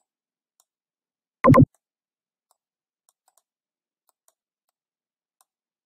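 A few faint computer mouse clicks. One loud, very short double knock comes about a second and a half in.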